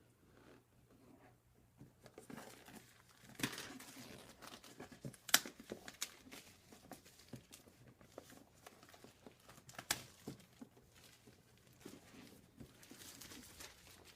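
Plastic packaging on a laptop box crinkling and tearing as it is cut open with scissors, with a few sharp clicks, the loudest about five seconds in. Quiet for the first couple of seconds.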